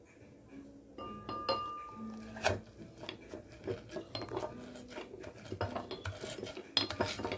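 Stainless-steel muddler crushing mint leaves and lime in a drinking glass: irregular knocks and clinks of metal on the glass bottom, with some grinding and rubbing, starting about a second in.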